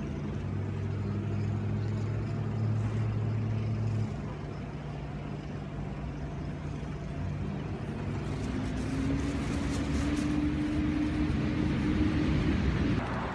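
City street traffic: a steady low engine hum in the first few seconds, then a vehicle's engine note rising slowly in the second half.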